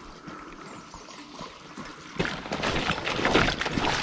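River water trickling, then splashing and sloshing more loudly from about halfway through.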